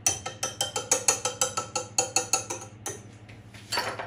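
A wire whisk beating a thick chocolate-caramel mixture in a stainless-steel saucepan, striking the pan's side in a quick run of metallic clicks, about six a second. The clicking stops after about two and a half seconds, and a short clatter follows near the end.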